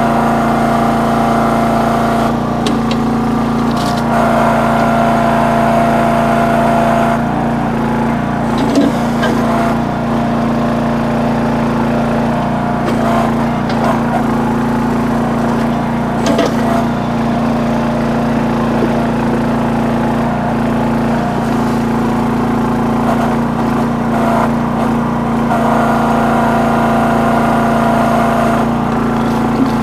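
A towable backhoe's small engine running steadily under load, with a few short knocks and scrapes from the bucket working in rocky ground.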